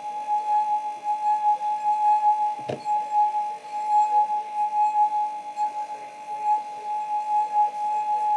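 Wet fingertip rubbed around the rim of a glass a quarter full of water, making the glass sing with one steady pure tone that swells and fades in level with each stroke. A brief knock about two and a half seconds in.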